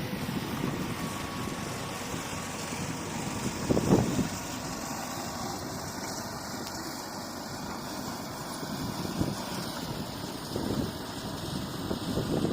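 Heavy earthmoving machine's diesel engine running steadily at low revs, with a short louder rumble about four seconds in.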